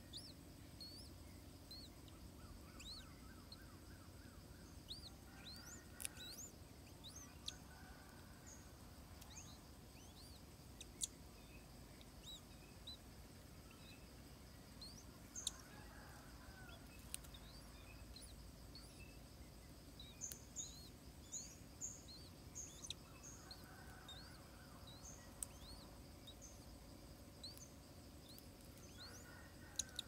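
Faint background birdsong: many short, high chirps and quick sweeping notes from small birds, with a rapid run of short notes about two-thirds of the way through, over a faint low hum and a few soft ticks.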